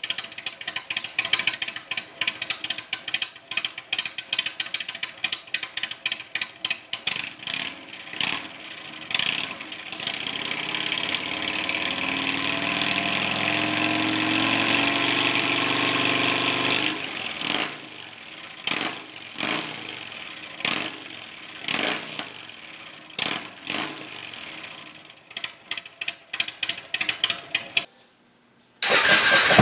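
Rapid ratchet-like clicking of hand tools working on a motorcycle's slip-on mufflers. In the middle a power tool runs for about seven seconds, its whir rising in pitch, followed by scattered separate knocks.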